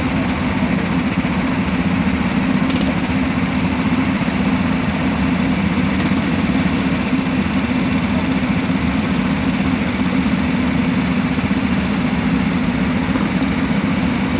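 A grid of rental go-karts idling together, a steady, unchanging engine drone with no revving.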